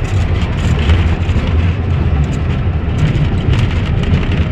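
Ganz UV tram running along the track, heard from inside the car: a steady low rumble with scattered clicks and rattles.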